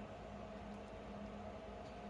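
Quiet room tone: a faint steady hum with light background hiss, and no distinct handling sounds.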